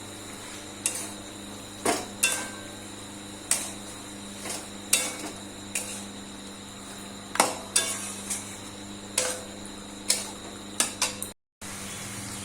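A metal cooking spoon clinking and scraping against a cooking pan as chicken is stirred into the fried masala, with about a dozen sharp, irregular clinks over a steady background hum.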